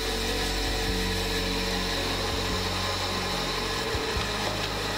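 MJ344BT woodworking band saw running steadily, its 19 mm bimetal blade cutting lengthwise through a log on the sliding table; a low hum changes slightly a little past the middle.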